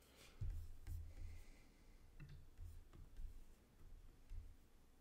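Quiet handling noise at a desk: soft low thumps and rubbing, with a few faint clicks from a mouse or trackpad.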